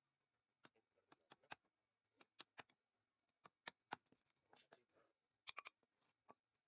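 Steel chisel worked by hand in a square mortise in a turned wooden bed leg: a string of faint, sharp, irregular clicks and taps as the blade knocks and pares at the wood.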